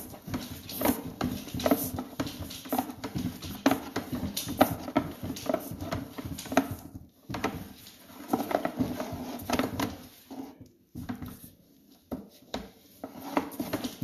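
Sewer inspection camera and its push cable working through a drain pipe: irregular clicking and knocking with scraping, pausing briefly twice.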